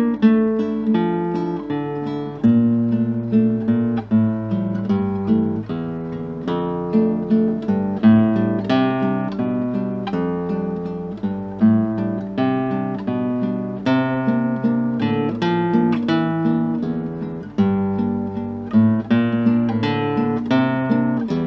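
Background music on acoustic guitar: a continuous flow of plucked notes over low bass notes.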